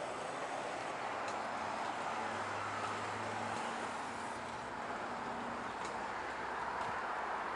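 Street traffic noise: a steady hiss of tyres and engines on the road, with a low engine hum about two seconds in that fades out a second and a half later.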